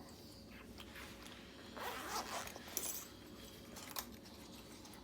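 Small metal lock-picking tools being handled. About two seconds in there is a short zipper-like rasp, and a few light clicks follow.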